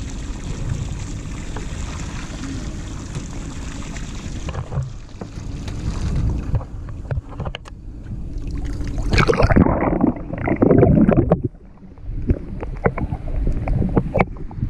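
Wind and running noise aboard a small fishing boat, with a louder rough stretch about nine seconds in and scattered knocks near the end.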